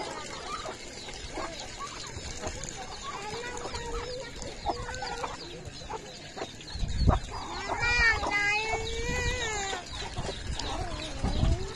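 Chickens clucking and calling while feeding: many short calls throughout, with a longer wavering call about eight seconds in. There is a low thump about seven seconds in.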